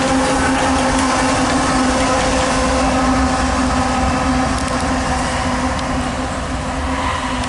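Freight train rolling past close by: a steady rumble of wheels on rail with a steady droning tone over it.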